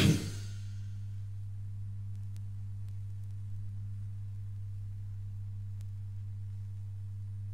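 Steady low electrical hum with a few faint overtones in the gap between two thrash metal tracks, after the music cuts off at the very start. Two faint ticks come through the hum.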